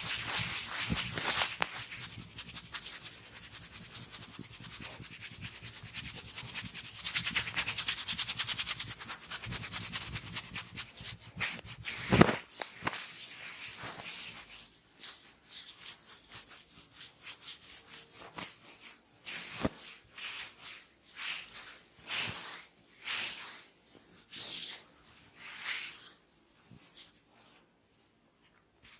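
Hands rubbing rapidly through hair and over the scalp in a head massage, a dense fast scratchy friction, broken by one sharp crack about twelve seconds in. After it the rubbing slows to separate strokes about a second apart that thin out near the end.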